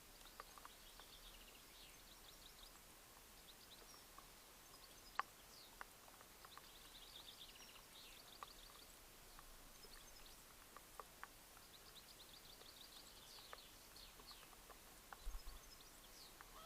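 Faint songbirds singing in the background, with several fast trilled phrases repeating every few seconds. Scattered small clicks and ticks, one sharper click about five seconds in.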